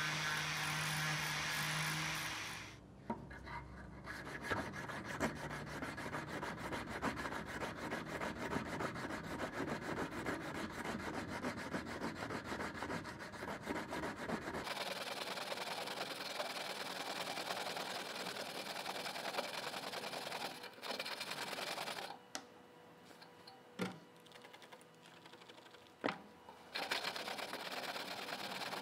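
An angle grinder's sanding disc running against a rusty steel knife blade, which stops after about two and a half seconds. Then rapid back-and-forth rubbing of an abrasive by hand along the blade, with a quieter spell and a few sharp clicks near the end.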